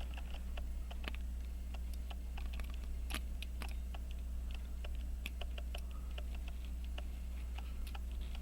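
Light, irregular clicks and taps of metal tweezers and small parts against an 18-size Elgin pocket watch movement as a part is worked into place, over a steady low hum.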